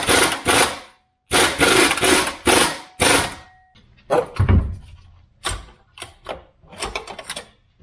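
A car transmission being worked down off its mounting on a transmission jack: several short bursts of harsh hissing, rattling noise over the first few seconds, then metal clunks and knocks, with one heavy thump about four and a half seconds in as the gearbox drops and shifts.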